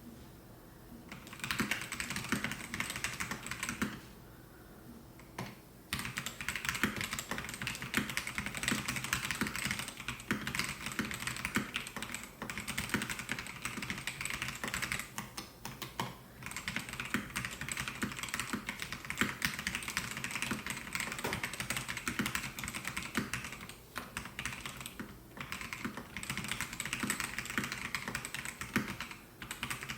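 Melgeek Mojo68 mechanical keyboard with white Pro switches being typed on in a fast, steady stream of keystrokes, with a pause of about two seconds near the start and a couple of brief breaks later on.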